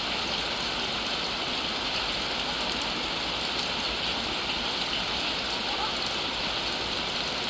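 Steady rain falling, an even, continuous hiss with no breaks or changes in level.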